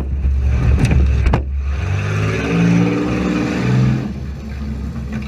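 Front-wheel-drive demolition derby car engine revving up and down hard, with a few sharp bangs in the first second and a half; the engine eases off about four seconds in.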